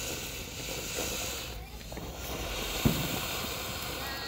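Ground fountain firework spraying sparks with a steady hiss that dips briefly partway through, and a single low thump about three seconds in.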